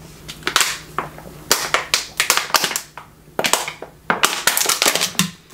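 Thin disposable plastic water bottle crinkling and crackling in the hand as water is drunk from it, its walls buckling and popping in irregular runs.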